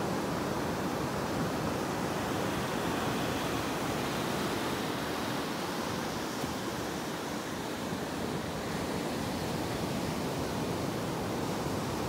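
Small sea waves breaking and washing up a sandy beach: a steady rush of surf that eases slightly about seven seconds in.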